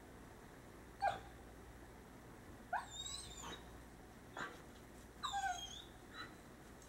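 Coyote calling at night: a scattered series of short yips and barks, about five in all, two of them longer, quavering high-pitched cries.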